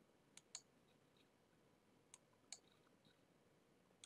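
Faint computer mouse clicks, two quick pairs of clicks and a single one near the end, against near silence.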